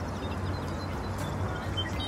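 Soft background music over a steady low rumble.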